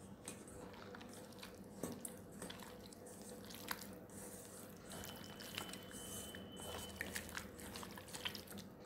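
Faint wet squelching and small irregular clicks of a hand mixing chicken pieces with egg and cornflour into a sticky batter in a steel bowl.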